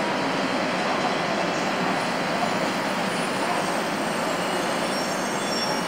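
Steady noise of a Shinkansen train at a station platform, with faint high squealing tones near the end.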